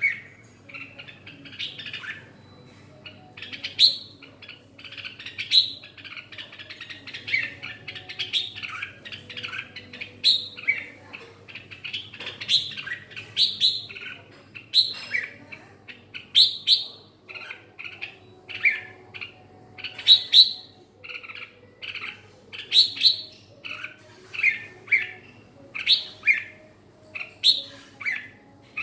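Caged red-whiskered bulbul singing: short, loud whistled phrases, repeated every second or so.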